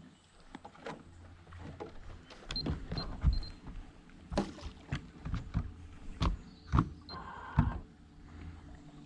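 Small boat moving under a quiet motor, a steady low whirr typical of an electric trolling motor, with repeated knocks and clatters of gear against the hull.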